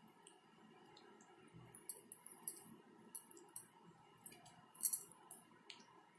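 Fingers smearing thick, wet masala paste onto katla fish steaks on a plate: faint, irregular sticky clicks and smacks, with a louder cluster about five seconds in.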